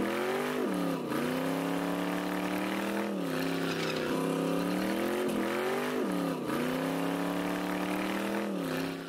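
Drag car engine held at high revs during a burnout on racing slicks. Its pitch climbs, dips sharply and recovers five times, over a hiss from the spinning tyre, and the sound fades out at the end.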